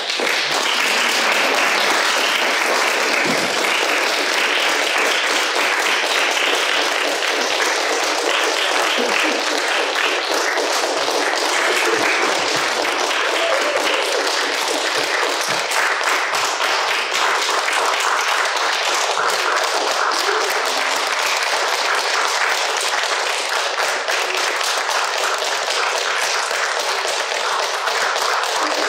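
Audience applauding steadily, a dense, even clapping without letup.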